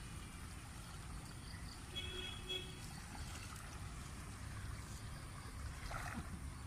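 Steady low rush of a flowing river. About two seconds in come two short, high chirps, and near the end there is a brief rustle.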